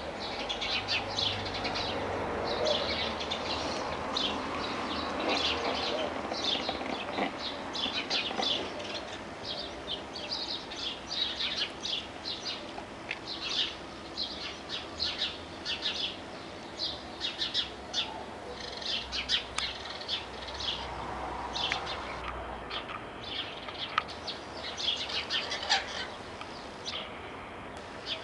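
Small birds chirping and twittering continuously: short, high chirps in quick succession, several a second, with a faint low hum underneath.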